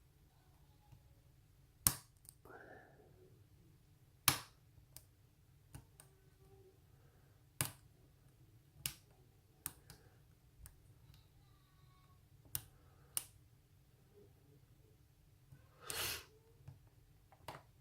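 Lock pick and tension wrench working the spool pins of a Euro cylinder lock: about a dozen sharp, isolated clicks, a second or two apart, as the pins are picked.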